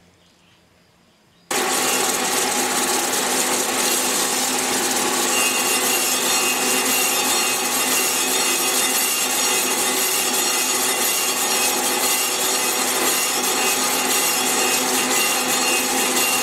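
Storm Vulcan 15A crankshaft grinder's wheel grinding down TIG weld build-up on a Willys 134 crankshaft's rear main seal surface. A steady grinding hiss with several steady machine tones starts abruptly about a second and a half in.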